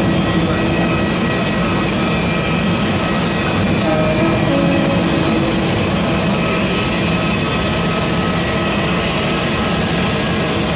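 Steady whine and rush of a parked airliner's auxiliary power unit, with several thin steady high tones over it. Faint voices come and go underneath.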